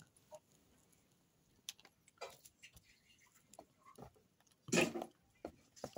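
Milk being poured from a carton into a glass of whipped coffee: a faint, soft pour with a few light ticks and rustles. One short, louder noisy rush comes about five seconds in.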